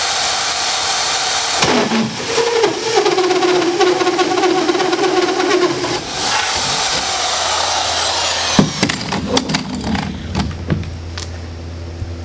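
Corded drill with a hole saw cutting a round hole through a boat's seat base: the drill whirrs, then a held tone sagging in pitch as the saw bites into the panel. Near the end the drill winds down and there are several sharp knocks and clatters.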